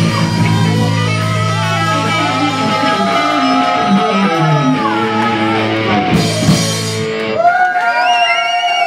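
Rock band playing live: electric guitar with held, bent notes over a bass line. The bass drops out about seven seconds in, leaving ringing guitar notes with bends.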